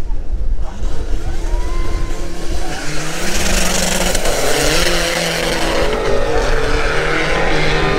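Drag-racing cars, an Audi RS7 and a turbodiesel Mk1 Golf, accelerating hard down the quarter-mile strip, their engines rising in pitch through the gears with a loud rush of noise.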